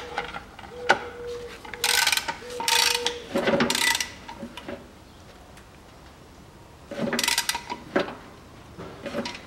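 Hand socket ratchet clicking in quick bursts as it runs in and tightens the bolt of a new lower engine mount: three loud bursts in the first few seconds, a pause, then shorter bursts near the end.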